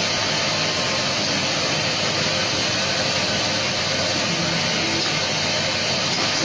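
Automatic paintbrush sewing machine running with a steady mechanical hiss and whir.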